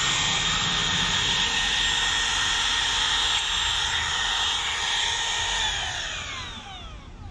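Makita XTR01Z and DeWalt DCW600B cordless brushless compact routers running together at top speed, a steady high whine. About six seconds in they are switched off and the whine falls in pitch as the motors spin down. The DeWalt has an electronic brake and the Makita has none.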